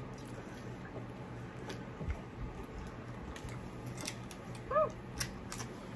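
Close-miked eating sounds: chewing, with scattered sharp clicks and crunches. A brief rising-and-falling squeak comes near the end.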